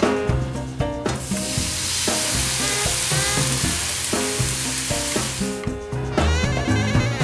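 Food sizzling and frying in a hot pan, a dense hiss that starts about a second in and stops a little before the end, over background music.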